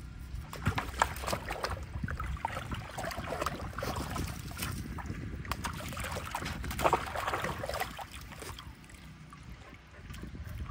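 Dogs splashing and wading in a water-filled plastic stock tank: water sloshing and slapping with many quick splashes, busiest through the first eight seconds and settling down near the end.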